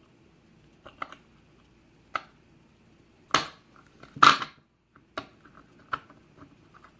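Metal tools clinking and clicking against a lock as it is handled for disassembly: a string of separate sharp clinks, the loudest a short clatter a little past four seconds in.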